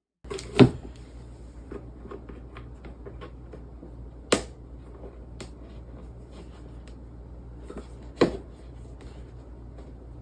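Hard plastic parts of a flat-pack storage stand being handled and pushed together: scattered small clicks and taps, with three sharp knocks, one near the start, one about four seconds in and one about eight seconds in, over a low steady hum.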